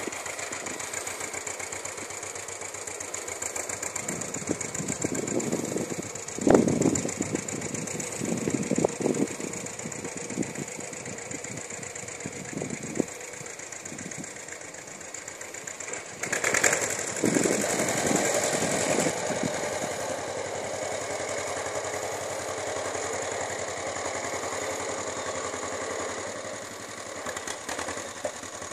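John Deere L tractor's two-cylinder engine running steadily at a distance with a fast, even beat. There are a few sharp knocks about six to nine seconds in and again near thirteen seconds, and a louder stretch of running from about sixteen to nineteen seconds.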